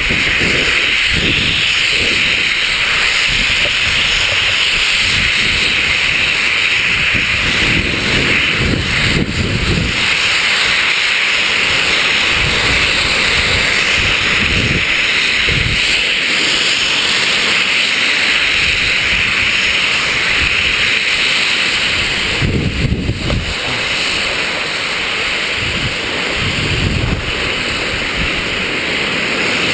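Wind rushing over the microphone and skis hissing and scraping on snow while skiing moguls, with irregular low thuds and gusts as the skis hit the bumps.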